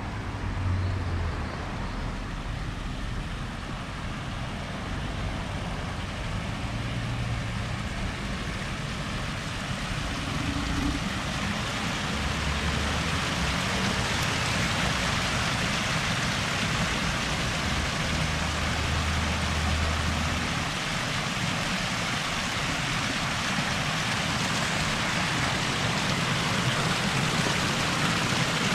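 Water from a wall fountain falling and splashing: a steady rushing hiss that grows gradually louder, with a low rumble underneath.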